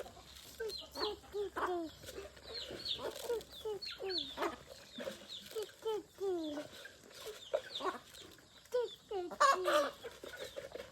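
A flock of chickens clucking continuously while being fed, many short overlapping calls that drop in pitch, with a louder call about nine and a half seconds in.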